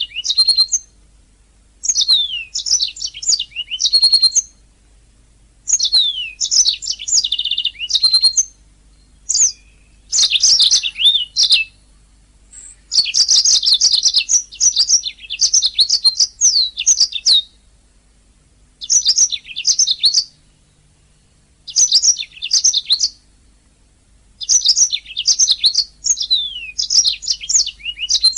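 Domestic canary singing: bursts of rapid trills and quick down-slurred whistles, broken by short pauses, with one longer unbroken run of song near the middle.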